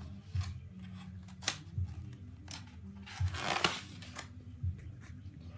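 A paper page of a picture book being turned by hand: a few light clicks and crinkles, then a longer rustle of the page sweeping over about three seconds in.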